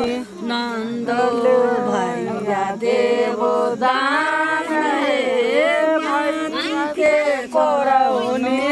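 A group of women singing a wedding song together, several voices overlapping.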